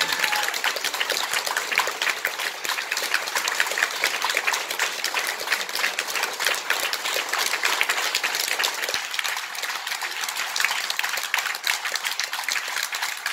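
Audience applauding: many hands clapping in a dense, steady patter that carries on without a break.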